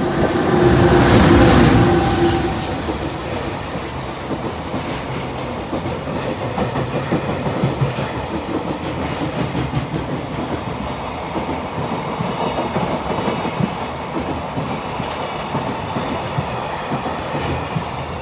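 JR Freight EH500 twin-unit electric locomotive passing at speed, loudest with a steady hum in the first two seconds. It is followed by a long train of container wagons rolling through, with continuous wheel clatter over the rail joints.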